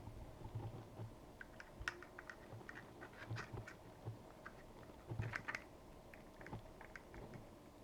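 Faint, scattered light clicks and taps of small plastic items being handled, a slime-kit activator bottle and measuring cup while 5 ml of activator is measured out, with a brief cluster of taps about five seconds in.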